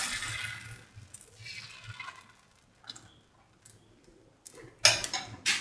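Semolina dosa batter sizzling on a hot pan as it is spread, the hiss dying away in the first second. Then faint scattered ticks, and two sharp clicks near the end.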